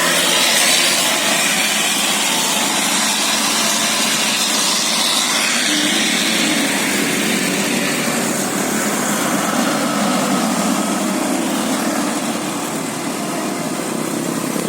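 A motor vehicle's engine running steadily, with road and traffic noise.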